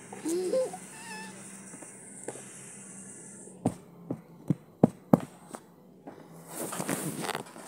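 A small dog gives a short rising whine about half a second in. Then come a string of six sharp taps and knocks, and a rustling near the end.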